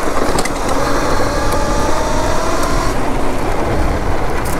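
Talaria Sting electric dirt bike ridden fast over a gravel road: a steady rumble of tyres and wind, with a faint whine from the electric drive rising slightly in pitch over the first few seconds.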